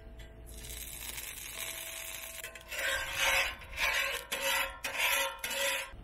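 A spatula scraping back and forth across the steel top of a hot Blackstone griddle, spreading oil, in about five strokes starting a few seconds in, after a softer hiss.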